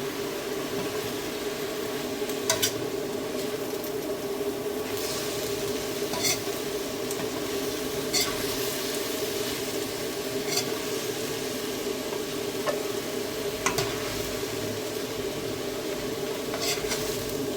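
Food sizzling in a frying pan as a spatula stirs it, with a sharp knock of the utensil against the pan every two or three seconds over a steady low hum.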